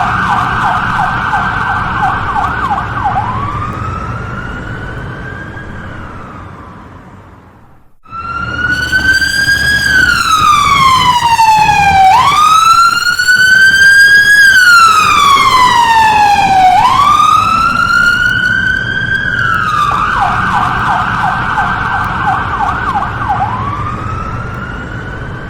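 Electronic emergency-vehicle-style siren sounding as the fire alarm that has been pulled. It starts with a fast yelp that slides into a wail and fades away. After a brief gap about eight seconds in, slow rising-and-falling wails follow, switching back to a fast yelp about twenty seconds in.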